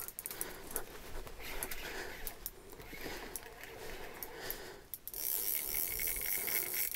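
Small ice-fishing reel being wound in against a hooked lake trout: faint, irregular clicks and handle rattle over a low hiss.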